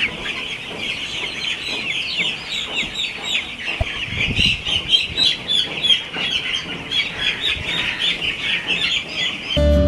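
A flock of broiler chickens peeping and cheeping, many short, high, falling calls overlapping without a break. Near the end, guitar music starts.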